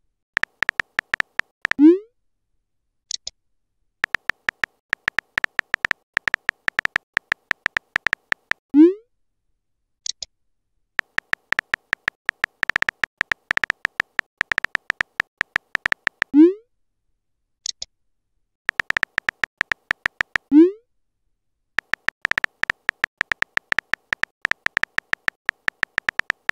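Chat-app sound effects. Runs of rapid keyboard-typing clicks over a steady electronic tone, several of them ending in a short low rising pop as a message is sent. A brief high chirp comes about a second after some of the pops.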